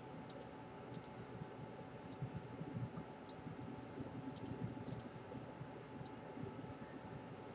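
Faint computer mouse clicks, about eight sharp clicks at uneven intervals, over low steady room noise.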